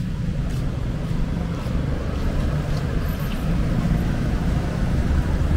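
Steady low rumble of a running vehicle engine, with a hum that shifts slightly in pitch.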